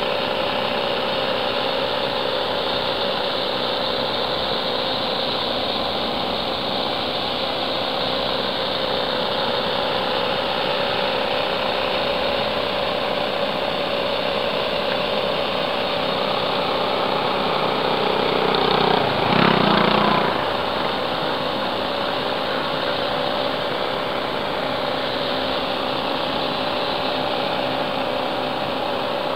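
Steady mechanical hum of engines, with one engine growing louder for two or three seconds about nineteen seconds in, then fading back.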